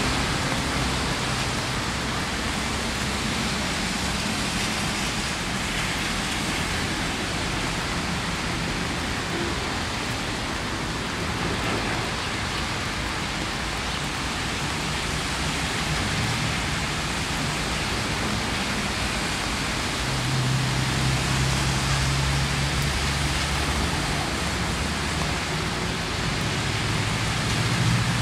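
Steady rain falling, a continuous even hiss. A low rumble of passing traffic rises about two-thirds of the way through and again near the end.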